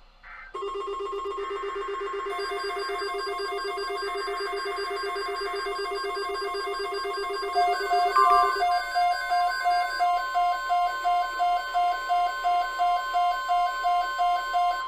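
Weather alert radio receivers sounding their alarms together: a fast buzzing warble starts about half a second in, and layered electronic beeps join it. From about eight seconds in, a steady tone near 1 kHz, typical of the NOAA Weather Radio warning alarm tone, sounds under a beep repeating about two and a half times a second.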